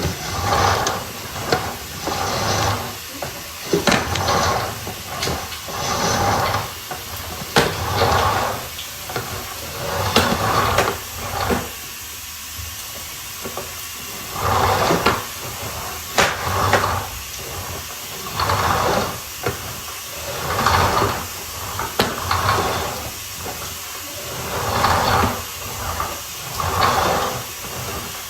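Sewer inspection camera's push cable being moved through the pipe by hand, making repeated sliding, scraping strokes about one every second or two, with a few sharp clicks.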